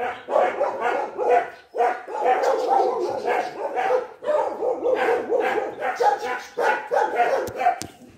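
Dog play-barking in a fast run of short yaps, several a second, with a couple of brief breaks.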